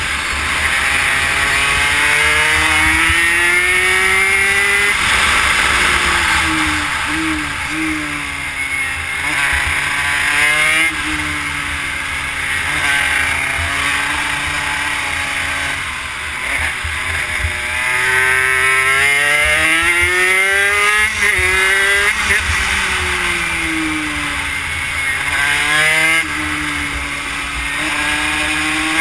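Honda CR80 two-stroke single-cylinder engine in a YSR50 minibike, heard onboard at race pace: it revs up and falls off again and again as the bike accelerates and slows for corners, with a few sudden steps in pitch. Wind buffets the microphone underneath.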